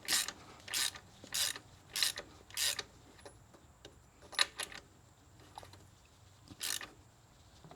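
Ratchet wrench clicking in short strokes, about one every 0.6 seconds, then a few more spaced out near the end, as a threaded coolant temperature sensor is snugged into an aluminum thermostat housing.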